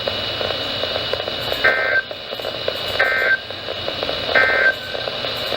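NOAA Weather Radio SAME digital data bursts: three short buzzy bursts about a second apart, sounding over the receiver's steady static hiss. Their shortness and placement right after the repeated warning fit the end-of-message code that closes the tornado warning.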